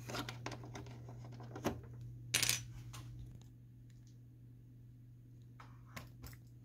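Light clicks and clatter of plastic printer parts being handled, with a louder rattle about two and a half seconds in, over a steady low hum. The clicks thin out for the second half, with a couple more near the end.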